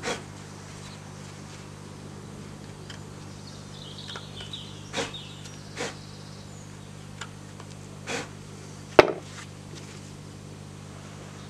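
Knife blade carving a groove into a wooden stick: a few short scraping strokes, then a sharp knock near the end, over a steady low hum.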